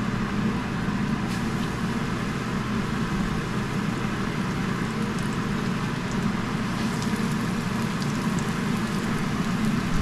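Flour-dredged veal rolls frying in hot fat in a cast iron skillet: a steady sizzling hiss with a few faint crackles, the meat browning on the outside. A steady low hum runs underneath.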